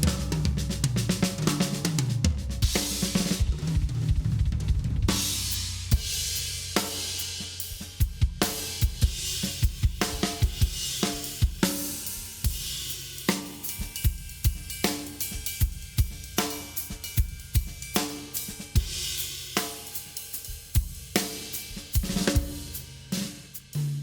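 A drum kit being played in a sound test. The first five seconds or so are a busy fill with strokes stepping down in pitch, then a steady beat of bass drum, snare and cymbals.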